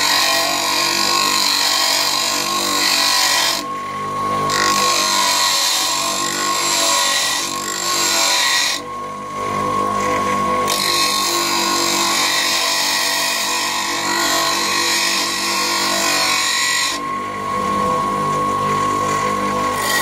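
Titan bench grinder running with a steady whine while a steel workpiece cut from a bike tool is pressed against the grinding wheel, giving a harsh grinding hiss. Three times the hiss drops away briefly as the piece is lifted off the wheel and the motor runs on alone.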